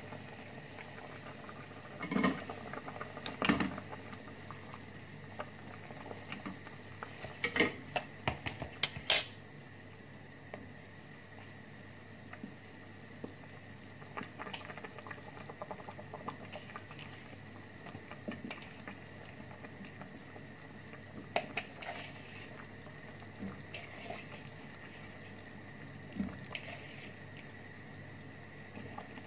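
Kitchenware clatter at a stainless stockpot of simmering meat broth: the glass lid comes off and potatoes and carrots go in, with sharp clanks in a few clusters, the loudest about nine seconds in. A steady faint hum lies underneath.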